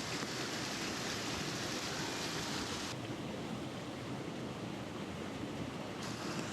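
Steady rush of a small river's current running over shallow riffles and rapids, with the hiss dulling for about three seconds in the middle.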